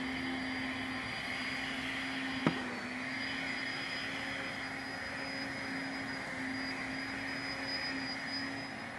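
A steady machine hum with a constant low tone and a faint high whine, with one sharp click about two and a half seconds in.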